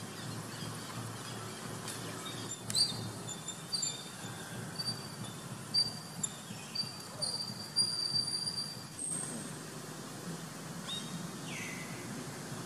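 Birds chirping over a steady low background hum: a run of short, high chirps in the middle, then a single falling whistle near the end.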